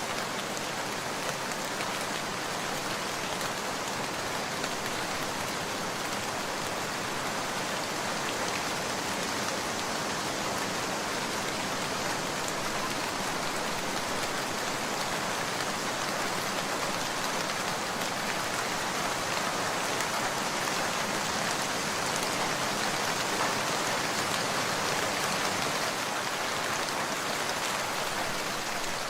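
Heavy rain falling steadily: a dense, even hiss of drops with no letup.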